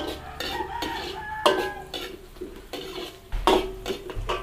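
A cooking utensil stirring and scraping a sauté of chorizo, garlic and onion in a pan. It knocks against the pan several times, the loudest about one and a half seconds in, with a cluster of knocks near three and a half seconds.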